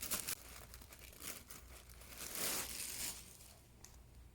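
Packaging crinkling and rustling as an item is handled and unwrapped, with a louder spell of rustling a little past the middle.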